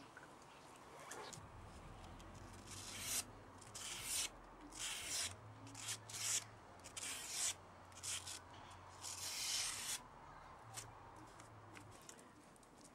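A freshly sharpened knife slicing through a sheet of paper in about eight short strokes, a test of the edge's sharpness.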